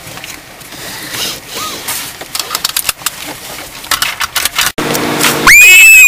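Rustling and a series of small clicks as a car seatbelt is pulled across and buckled. After an abrupt cut near the end, a very loud pitched whoop rises, holds and falls over a steady low chord.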